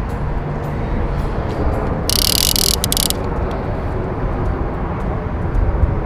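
Fishing reel's drag giving line in a hissing burst about two seconds in, lasting about a second, as a big hooked fish runs, with a few clicks, over a steady low rumble.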